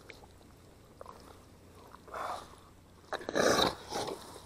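Thick wet mud squelching and sucking as a leg sunk knee-deep is worked loose, the shoe left stuck in it. There is a short squelch about two seconds in and a louder, longer one a second later.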